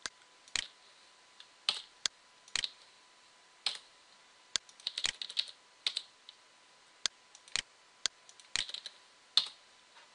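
Computer keyboard keystrokes as 1s are typed into a list and the cursor is moved down it: single key taps every second or so, with a quick run of several taps about five seconds in.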